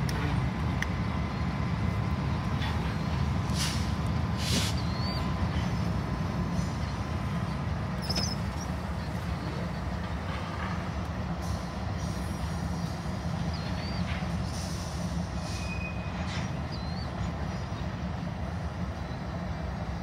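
Manifest freight train rolling past: a steady low rumble of tank cars and hoppers on the rails, with scattered clanks and a few brief high wheel squeals.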